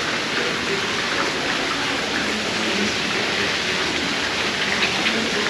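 Steady rushing of falling water, an even hiss with no break.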